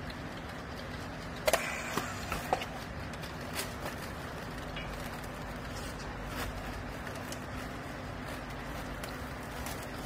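Handheld strapping tool and plastic baling strap being handled around a pressed bale, giving a few sharp clicks and knocks about one and a half to two and a half seconds in, over a steady machine hum.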